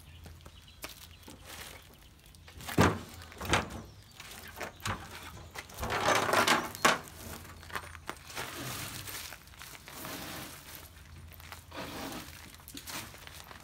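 Knocks and clunks as a Land Rover bonnet panel is tipped up and shifted on its stand, with packaging rustling. Two sharp knocks come about three seconds in, and a longer rustling clatter about six seconds in ends in another knock.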